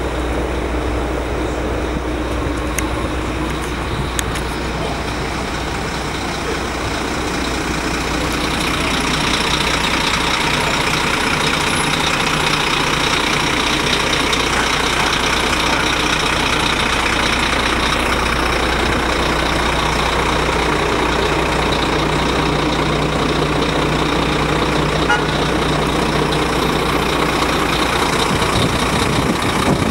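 Scania P400 fire engine's diesel engine idling, a steady low hum with a rushing noise over it that grows louder about eight seconds in.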